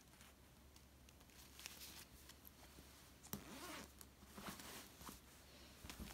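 Faint rustling of a velour pillow cover and its foam-filled inner cushion being handled, with a few soft clicks and scrapes, busiest a little past the middle.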